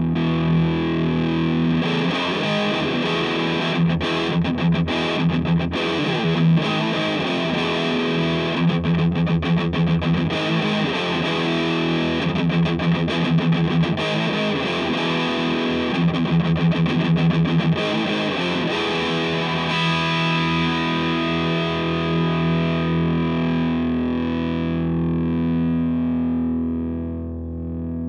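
Electric guitar, a Gibson Les Paul Classic, played with a distorted tone through a Cort CMV15H valve amp head and a Celestion Seventy 80 speaker. It is choppy riffing for the first two-thirds, then a chord is left ringing, its bright edge slowly dying away near the end.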